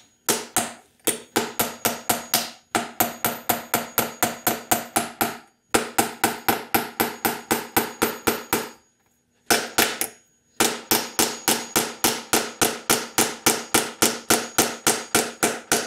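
Claw hammer striking a sapele blank down through a Veritas steel dowel former in quick, even blows, about four to five a second, in runs broken by a few short pauses; the former shaves the wood to a 3/16-inch dowel. Each blow leaves a faint metallic ring.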